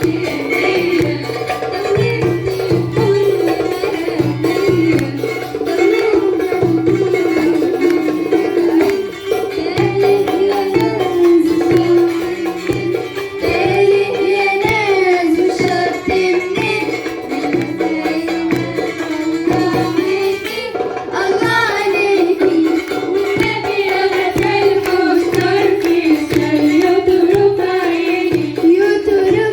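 Live Port Said simsimiyya music: a woman sings a folk song, accompanied by the plucked simsimiyya lyre and a steady hand-drum rhythm.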